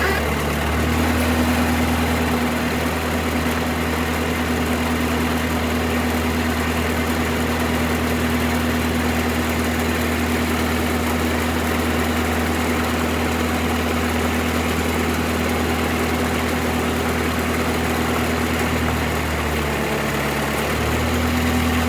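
Stump grinder's engine running steadily; near the end its note briefly drops and then returns.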